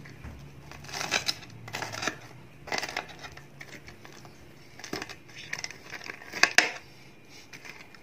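Spoon and fork cutting through the crisp fried breadcrumb crust of chicken katsu on a plate: irregular bursts of crunching and crackling, with the metal cutlery scraping and clicking against the plate, the sharpest about six and a half seconds in.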